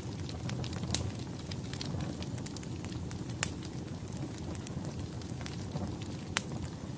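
Fire crackling: a steady low rumble with scattered sharp pops, the loudest about three and a half seconds in and again near the end.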